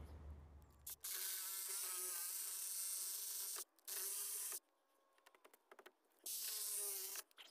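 Reciprocating saw (Sawzall) cutting off the protruding tips of the ramp's wooden boards, in three bursts: a long one about a second in, a short one, and another near the end. Each is a steady motor whine with a cutting hiss that stops abruptly.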